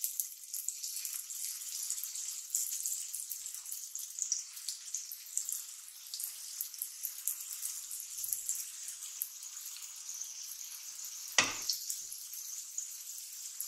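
Dough patties shallow-frying in hot oil in a frying pan: a steady, fine sizzle and crackle. One sharp knock about eleven seconds in.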